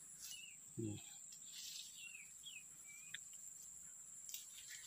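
Insects, crickets or cicadas, shrilling in a steady high-pitched drone, with a handful of short chirping bird calls over it. A brief low voice sound comes about a second in.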